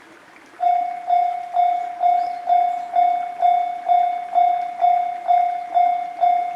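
Japanese railway level crossing warning bell starting up about half a second in, then ringing a steady, evenly repeated clang about twice a second, the signal that a train is approaching and the crossing is closing.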